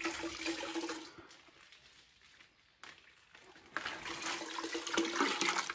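Soapy water poured from a plastic tub over a foam casting pattern, splashing and running off into a bucket below. There are two pours, a short one in the first second and a longer one from just under four seconds in, with trickling between. This is the wetting flood before the drywall-compound coating.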